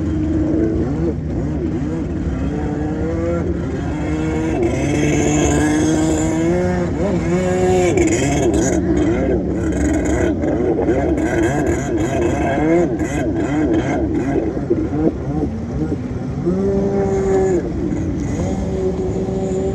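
Kawasaki X2 stand-up jet ski's two-stroke engine revving up and down over and over during freestyle tricks, its pitch climbing and falling, with water churning around the hull.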